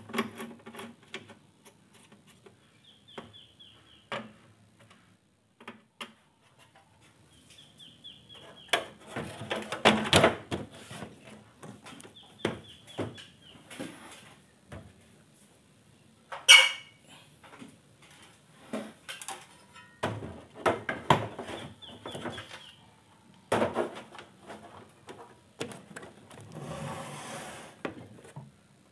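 Irregular plastic clicks, knocks and rattles of an LCD TV's back cover, screws and stand being handled and fitted, with one sharp loud knock about halfway and a stretch of rubbing and scraping near the end. A few short, high, descending trills come in between.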